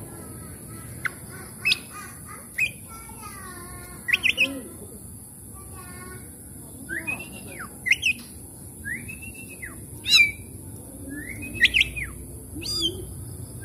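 Oriental magpie-robin in full song: a varied string of clear whistles that arch up and down, sharp chips and quick rattling runs of notes, phrase after phrase with short gaps between.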